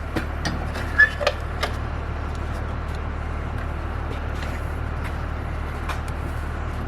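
Light clicks and taps of screws and tools being handled at an RV refrigerator's cover, a cluster in the first couple of seconds and one more near the end, over a steady low hum.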